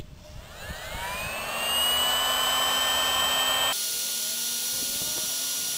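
Hot air gun switched on with a click. Its blower fan spins up with a rising whine and settles into a steady whir and rush within about a second and a half. The sound changes abruptly a little past halfway.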